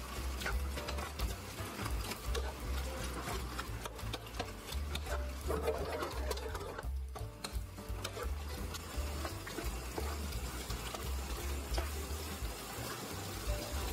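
Wooden spatula tossing spaghetti in a creamy sauce in a frying pan: wet stirring with many quick light clicks and scrapes against the pan. Background music with a low bass runs underneath.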